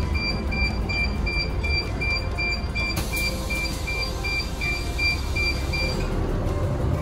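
Bus door warning beeper giving quick, evenly spaced high beeps over the low rumble of the bus's diesel engine. About three seconds in, a hiss of compressed air from the pneumatic door starts, and the beeps and hiss stop together about six seconds in as the door finishes closing.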